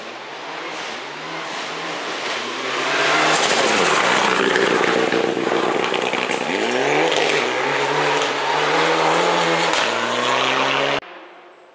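Rally car engine revving hard, its pitch climbing and dropping again and again with the gear changes as it is driven at speed on a gravel stage. The sound grows louder about three seconds in and cuts off abruptly near the end.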